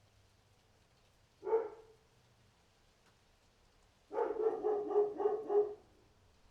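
Dog barking: a single bark about a second and a half in, then a quick run of about five barks near the end.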